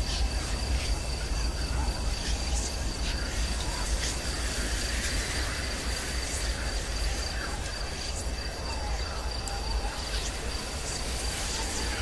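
Spooky night ambience sound effect: a steady high cricket trill over a deep low rumble, with scattered faint clicks.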